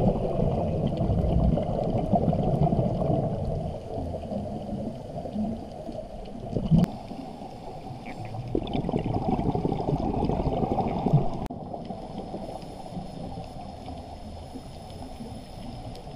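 Underwater sound through a camera housing: the gurgling rush of a scuba diver's exhaled regulator bubbles, swelling and fading in slow surges. Two short sharp knocks, about a third and two thirds of the way in.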